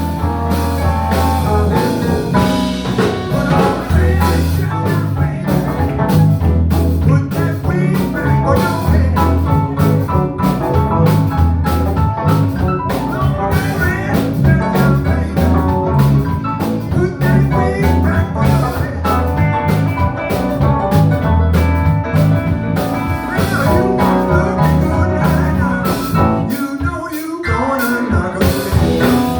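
A band playing blues with drum kit, bass and guitar at a steady beat; the bass and drums drop out briefly near the end before coming back.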